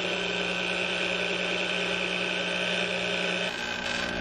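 Tashin electric citrus juicer's motor running steadily as its reamer cone turns under a lime half pressed onto it, a steady hum that shifts slightly in tone about three and a half seconds in.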